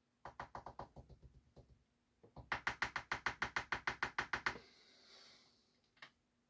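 Rapid run of small hard knocks, about eight a second, in two fading bursts from a loaded shotshell hull with its buckshot pellets being settled by hand. A short hiss follows, then a single click near the end.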